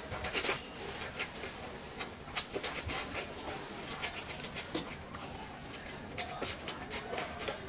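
A person eating a chicken leg held in the hands: bites, wet chewing and lip-smacking, heard as a string of irregular small clicks and smacks.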